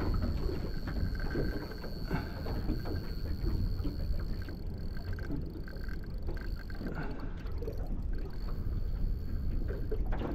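Choppy water slapping and lapping against the hull of a small aluminium tinny as it rocks, with wind buffeting the microphone.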